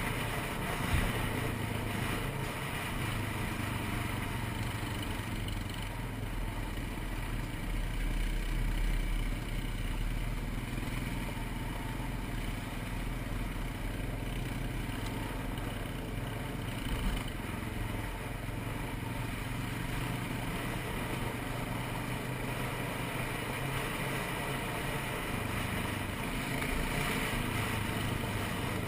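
ATV (quad) engine running steadily while riding, with a couple of brief knocks, one about a second in and one about halfway through.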